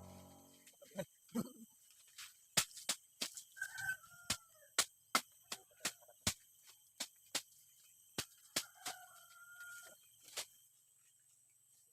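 Irregular sharp clicks or knocks, about two a second, over a steady high insect drone. Two short pitched animal calls come about four and nine seconds in.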